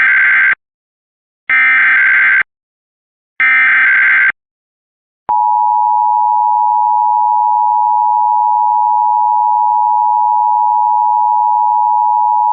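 Emergency Alert System test signal: three short bursts of SAME header data, a buzzy two-pitch digital warble, about a second apart. About five seconds in, the steady two-tone EAS attention signal starts and holds.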